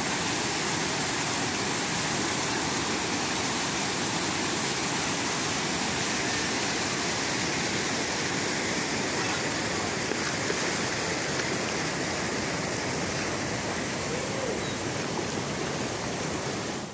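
Water pouring over a low dam and rushing through shallow river rapids: a steady, even rush of white water.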